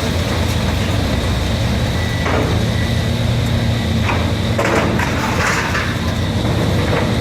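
Diesel engine of heavy demolition machinery running steadily, with a few short, sharp noises over it about two, four and five seconds in.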